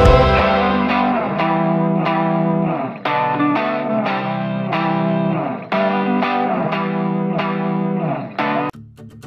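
Background music: plucked guitar notes with effects in a repeating pattern over a steady bass. It drops away to a quieter passage near the end.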